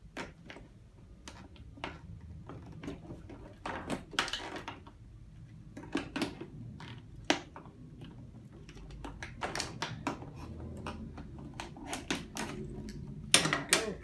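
Irregular clicks and knocks of hand tools on metal and plastic as a washer dryer's stubborn water inlet solenoid valve is worked loose; the loudest knocks come near the end.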